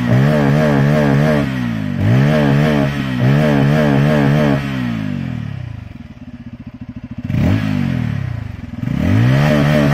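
Bajaj Pulsar N250's single-cylinder engine revved hard and held high with repeated throttle blips, dropping back to a low idle about six seconds in, a short blip, then revved up again near the end. The full-throttle revving is an attempt to make the exhaust spit flames.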